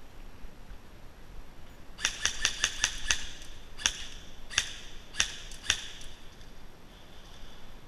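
Airsoft gunfire: a quick run of about six sharp, ringing cracks, then four more single cracks spaced roughly half a second to a second apart.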